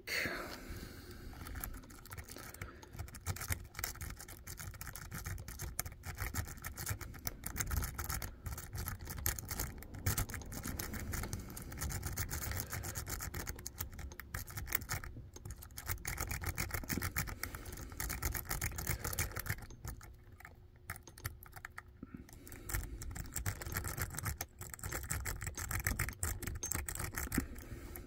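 A lock-pick rake is worked rapidly in and out of a Dom Sigma Plus cylinder lock, so that metal scrapes and clicks fast against the pins under tension. There are a couple of short pauses about two-thirds of the way through.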